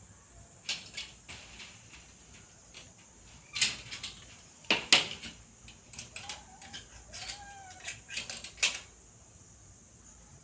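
Irregular sharp clicks and clattering knocks, loudest about three and a half and five seconds in, over a steady high hiss.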